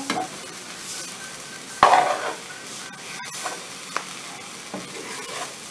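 Rehydrated textured soy granules frying in a pan, stirred and scraped with a plastic spoon against a steady sizzle, with one louder scrape about two seconds in and a few light clicks of the spoon.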